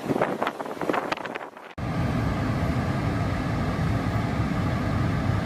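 Storm wind battering the microphone over waves on a lake shore: first a gusty, crackling stretch, then, after an abrupt cut about two seconds in, a steady low rumble of wind.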